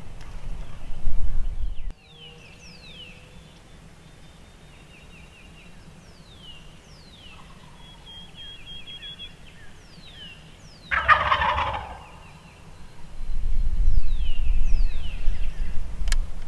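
Wild turkey gobbling once, loudly, about eleven seconds in, while small birds give short falling chirps throughout. Wind rumble on the microphone comes and goes, and there is a sharp click near the end.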